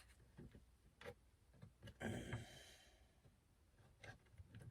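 Near silence with a few faint clicks and a brief soft rustle about two seconds in, from hands working small parts into a kayak's plastic hull.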